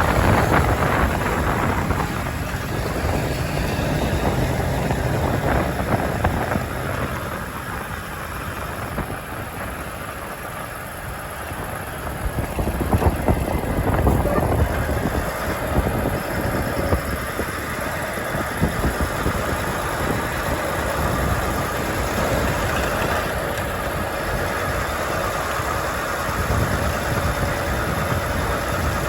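Truck engine running with road noise while driving. The loudness swells and dips slowly.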